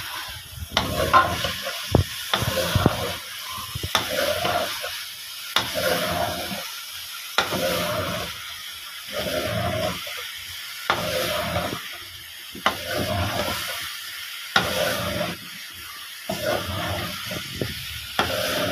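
Metal spatula stirring and scraping cauliflower and potatoes around a metal pot while they fry, sizzling, in oily masala gravy, with a sharp scrape or knock on the pot about every second and a half to two seconds.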